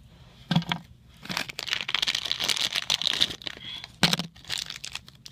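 Crinkling and rustling of handling, with a sharp knock about half a second in and another about four seconds in.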